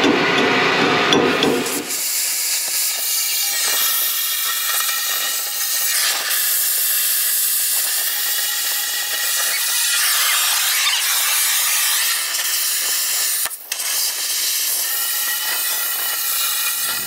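Oxy-fuel cutting torch hissing steadily as it burns through the steel of a trailer axle spindle to cut it off. For about the first two seconds a deeper mechanical running sound is heard, which stops abruptly.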